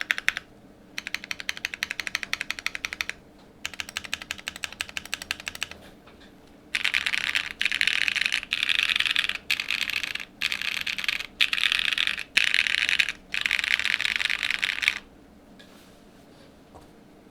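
LM60N mechanical keyboard with an FR4 plate, BSUN Strawberry Cheesecake switches and GMK keycaps, keys pressed in very fast runs of clicks. Two runs of quick, even clicks come first, then from about seven seconds in a string of denser, louder bursts with short breaks between them, stopping about two seconds before the end.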